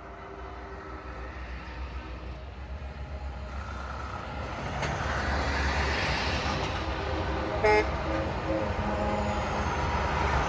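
Semi trucks rolling past one after another, their engine and road noise growing louder as they come close. A held multi-note air-horn chord fades out in the first two seconds, and a short horn blast sounds about eight seconds in.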